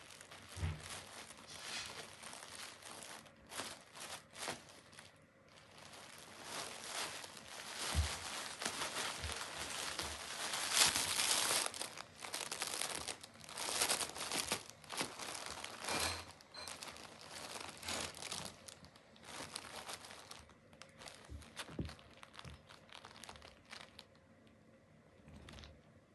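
Crinkly iridescent foil-like material and sequined fabric rustling and crackling in irregular bursts as a cat noses, burrows and paws into it, loudest around the middle.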